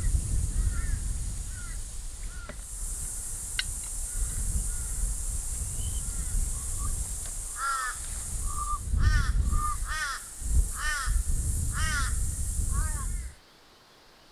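A crow cawing: a run of about six caws, roughly one a second, in the second half, with fainter calls earlier, over a steady high hiss. All sound cuts off abruptly about a second before the end.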